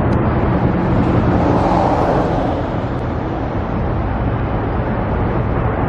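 Road traffic noise with a steady low rumble, and a vehicle passing by about two seconds in that swells and then fades.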